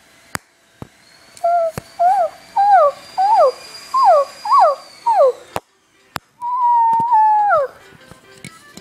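An electronic toy plays an animal-sound effect through its small speaker: a run of about eight short calls, each falling in pitch, then one longer call that drops at the end. Sharp plastic clicks from the toys being handled are heard between the calls.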